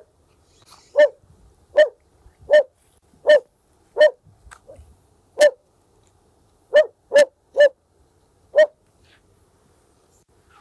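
A dog barking at a person: about ten short barks spaced roughly a second apart, with a quicker run of three later on.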